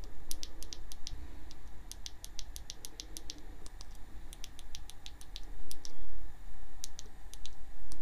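Quick runs of small plastic button clicks from stepping through a camera's on-screen settings menu, over a steady low rumble.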